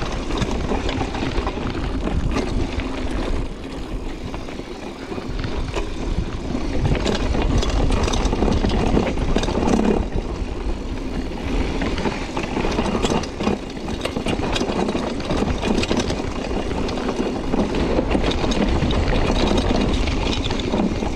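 Mountain bike riding down a rough dirt trail: tyres rumbling over the ground and the bike rattling and clicking over bumps, with wind noise on the microphone.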